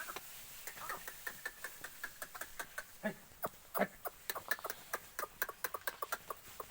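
Rapid, irregular clicking and crackling from goats, with two louder knocks about three and four seconds in.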